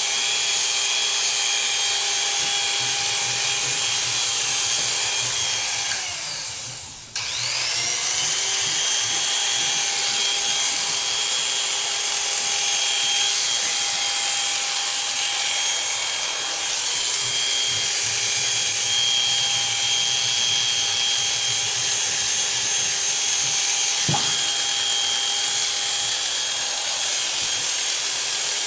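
Electric hair clippers running with a steady buzzing hum as they cut hair. About six seconds in the motor winds down, stops briefly, then spins back up to speed.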